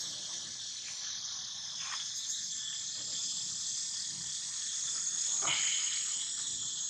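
Steady chorus of insects, a dense high-pitched buzzing that doesn't let up, with two brief faint clicks about two seconds in and again about five and a half seconds in.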